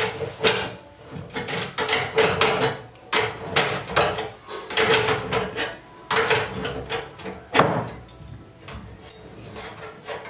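Adjustable wrench working the inlet nut on a steel gas stove: a quick, uneven series of metallic clicks and knocks as the jaws are set and reset on the nut and tap the stove body, which rings with a low note. One sharper knock about seven and a half seconds in.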